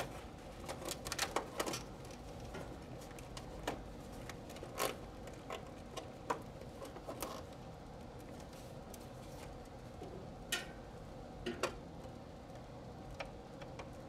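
Irregular small clicks and taps from wiring and plastic connectors being handled on an air conditioner's inverter circuit boards, a cluster in the first two seconds, then scattered, with a few more about ten and eleven seconds in. A faint steady hum lies underneath.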